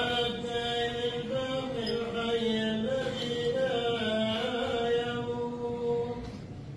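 A man chanting alone in a slow, melodic religious line, holding long notes that bend up and down; the chant stops about six seconds in.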